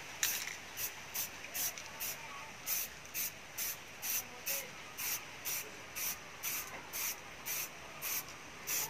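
Aerosol spray-paint can sprayed in short bursts of hiss, about two a second.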